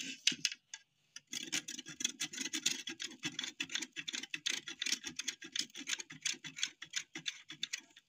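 A bar of soap being grated on a flat stainless-steel hand grater: quick, even rasping strokes, starting about a second in after a few light clicks.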